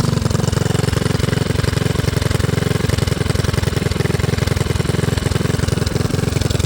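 Small gas engine on a go-kart with a torque-converter drive, running with rapid, even firing pulses at a low, steady speed. It eases down slightly at the start.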